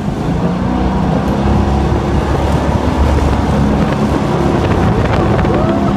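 Flat-bottomed motorboat under way: its outboard engine runs with a steady drone.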